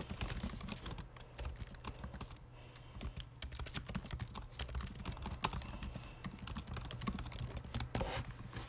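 Fingers tapping and typing: a quick, irregular run of light clicks, over a low steady hum.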